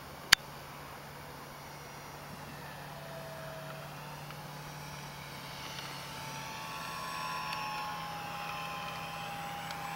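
Electric motor and propeller of a Great Planes SE5a radio-controlled biplane whining during a low pass, getting louder as the plane comes close, its pitch sinking slightly as it goes by. A single sharp click about a third of a second in.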